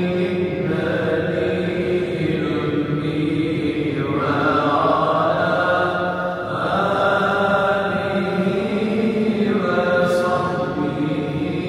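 Male voices chanting a salawat (durood) on the Prophet Muhammad in a slow, melodic Ottoman style, with long held notes that shift in pitch every second or two.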